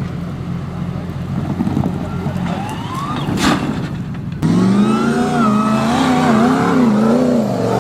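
Off-road 4x4 competition truck's engine running steadily, with a sharp knock about three and a half seconds in. The engine then abruptly gets louder, revving hard up and down in quick waves.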